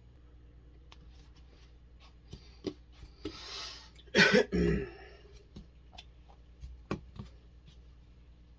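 A man coughs twice in quick succession about four seconds in, just after a breath in. A few light clicks and taps come before and after.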